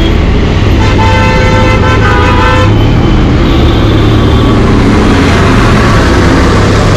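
Benelli TRK 502X parallel-twin motorcycle engine running at low speed in city traffic, with steady road and wind noise. A vehicle horn sounds one long blast of about two seconds about a second in, and a fainter horn follows about three and a half seconds in.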